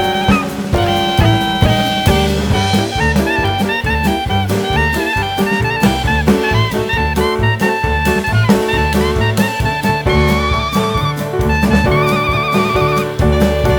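Instrumental jazz background music with horn melody, bass and drum kit, with wavering held horn notes near the end.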